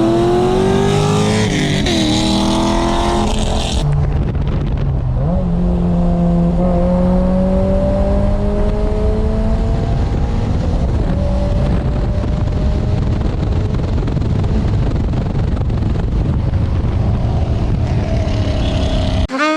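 Toyota GR86's 2.4-litre flat-four engine with an aftermarket exhaust, accelerating hard. Its pitch climbs, drops at a gear change and climbs again in the first few seconds, then rises slowly through a long pull and settles into steady running.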